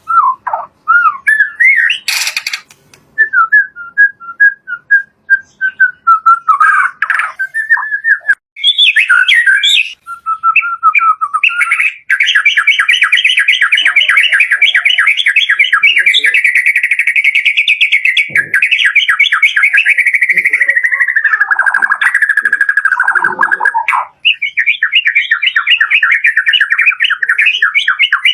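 White-rumped shama (murai batu) singing: varied whistled phrases at first, then from about twelve seconds in a long, very fast run of repeated notes that dips lower near its end, followed by another fast run.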